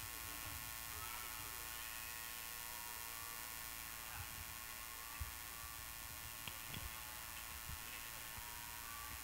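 Faint background music over a steady electrical hum from the sound system, with a few soft low thumps.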